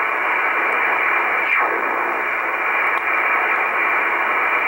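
Icom communications receiver in upper-sideband mode giving out steady shortwave band noise, a narrow, hissy rush, while it is tuned up through the 11 MHz band. About a second and a half in, a whistle glides down in pitch as the tuning sweeps past a signal.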